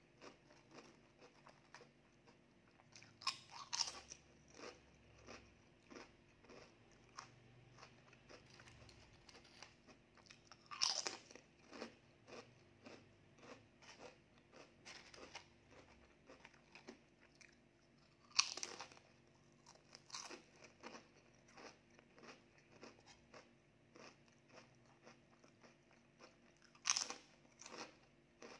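Purple ube (sweet potato) chips being bitten and chewed: four loud crisp bites, one every seven or eight seconds, each followed by a run of quieter crunches as the chips are chewed.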